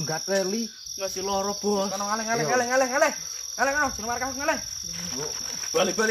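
Crickets trilling in a steady high drone, with men's wordless voices rising and falling in pitch over it, the loudest sound, breaking off briefly under a second in.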